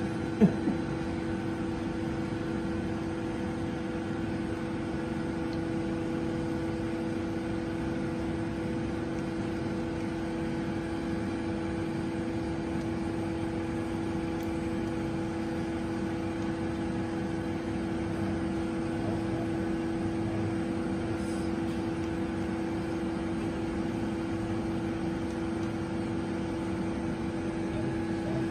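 Kunzmann BA 600 CNC machining centre running with a steady hum at one constant pitch, with a single sharp click about half a second in.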